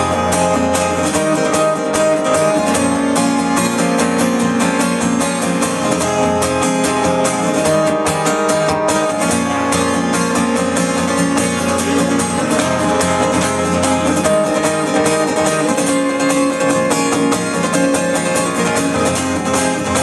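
Live band playing an instrumental passage led by strummed guitar, with no singing.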